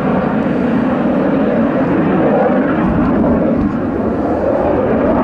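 Jet noise from a BAe Hawk T.1A's Adour turbofan as the jet flies a smoke-trailing display pass. It is a loud, steady rush whose pitch wavers slowly.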